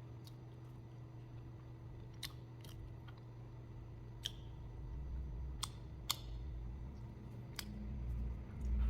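A few light, sharp clicks and taps of tableware while someone eats at the table, scattered over several seconds, over a faint steady low hum.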